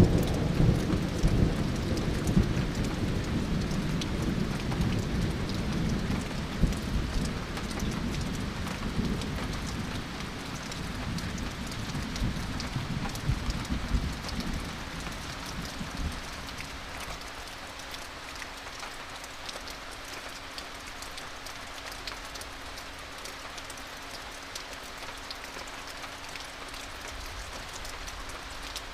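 Thunder rumbling, loudest at the start and dying away over about fifteen seconds, with rain pattering throughout during a thunderstorm.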